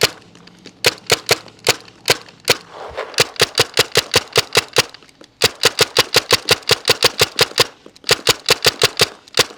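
Tippmann TMC mechanical paintball marker firing semi-automatically in fast strings of about seven shots a second, with brief pauses between strings.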